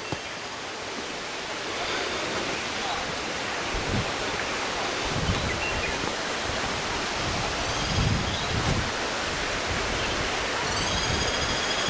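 Steady rush of a waterfall, swelling a little about two seconds in, with a few low rumbling bumps on the microphone.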